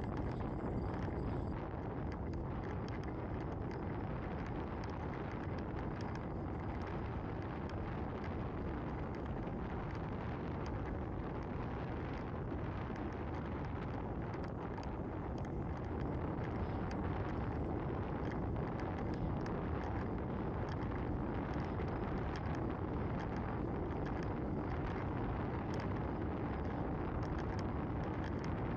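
Steady wind rushing over the microphone of a camera on a moving bicycle, mixed with the rolling noise of the bike on asphalt, with scattered faint clicks.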